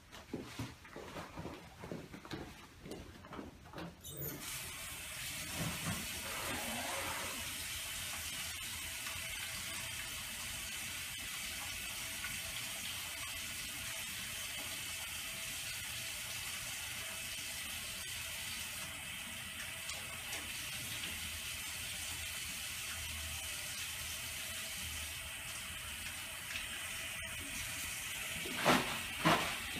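Bathroom sink tap running steadily while hands are washed under the stream. The water comes on about four seconds in, after a few brief shuffling sounds.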